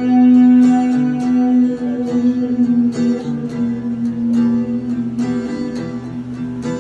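Live acoustic guitar and a second guitar playing an instrumental passage with no vocals. One long held note rings under repeated picked notes and chords, and the playing slowly gets quieter toward the end.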